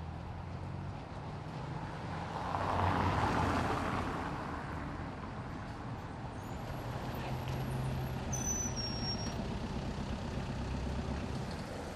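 Street traffic: a vehicle engine running, with a vehicle passing loudest about three seconds in, and a short high whistle about eight and a half seconds in.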